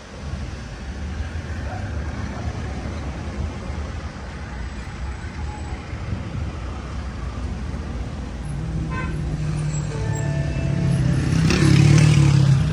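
A motor vehicle's engine running with a low rumble, growing louder near the end.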